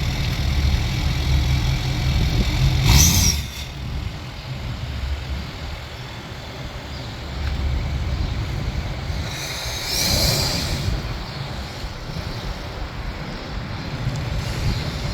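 Ford F-250's 6.7-litre Power Stroke V8 diesel running with a steady low rumble, easing off after about three and a half seconds and picking up again later. Two short hissy bursts come through, one about three seconds in and one about ten seconds in.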